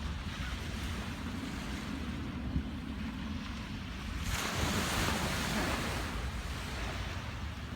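Wind buffeting the microphone over the steady wash of ocean surf, with a louder rush of surf for a couple of seconds about four seconds in.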